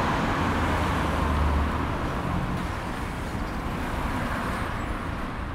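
City bus pulling in to a stop: a steady engine rumble and road noise, loudest in the first two seconds and easing a little as it slows.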